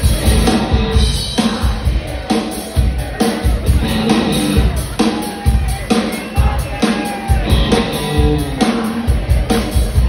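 Live rock band playing an instrumental break, the drum kit keeping a steady beat of about two hits a second under electric guitars and bass, amplified through a concert PA.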